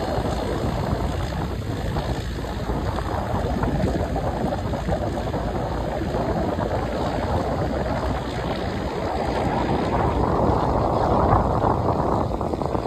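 Wind buffeting the microphone: a steady rushing rumble with no clear tone, rising slightly in the last few seconds.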